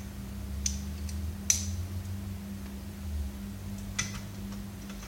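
A few sharp clicks and taps of small hard tools being handled, three distinct ones with the middle one loudest, over a steady low hum.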